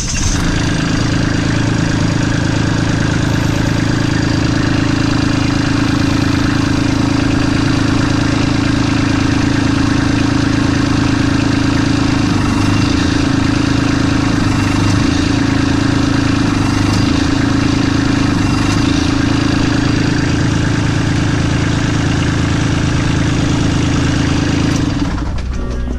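Kubota LX2610 compact tractor's three-cylinder diesel engine running at a steady speed, a continuous droning hum that cuts off shortly before the end.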